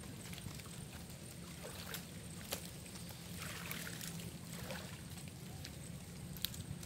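Water sloshing and trickling as a bamboo box fish trap is lifted out of pond water and drains, with a couple of sharp clicks.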